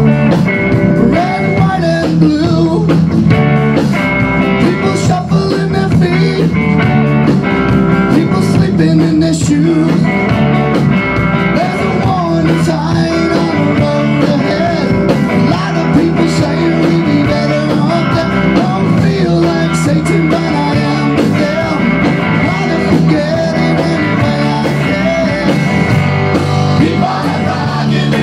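Rock band playing live: electric bass, electric guitar and a Tama drum kit keeping a steady beat, with a man singing over them.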